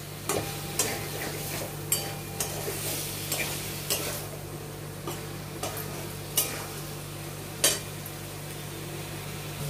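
Chicken in curd and biryani masala sizzling in a metal kadai while a spatula stirs it, at the sautéing (kasa) stage. About once a second the spatula clinks or scrapes on the pan, the loudest strikes about two-thirds of the way through.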